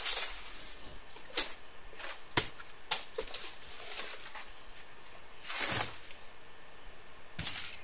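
Footsteps pushing through dry forest undergrowth: leaves rustling and twigs snapping, with a few sharp cracks and a longer rustle of brush about two-thirds of the way in.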